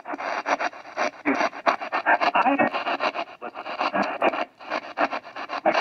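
Portable AM/FM radio used as a spirit box, putting out a rapid, choppy stream of static and broken radio fragments. The operator hears words in it, which he takes for spirit messages.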